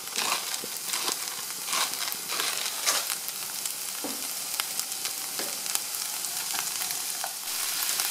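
Diced onions frying in olive oil in a skillet: a steady sizzle with scattered crackles and pops.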